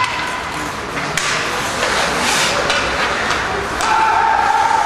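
Ice hockey game sounds: skates scraping the ice, with scattered knocks of sticks, puck and boards. A voice calls out in a long held shout near the end.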